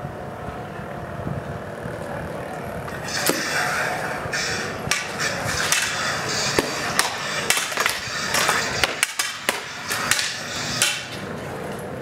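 Combat lightsaber blades striking each other in sparring: a quick, irregular series of sharp clacks starting about three seconds in, over steady outdoor background noise.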